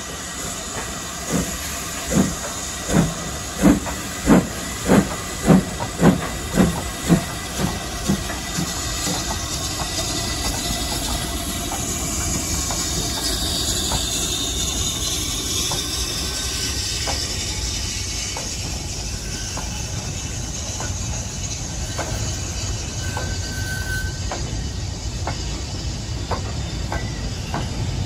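BR Standard Class 4MT 4-6-0 steam locomotive No. 75029 pulling away with a goods train: about a dozen loud exhaust chuffs that quicken as it gets going. They give way to a steady hiss of steam and the rumble and clicks of the freight wagons' wheels rolling past.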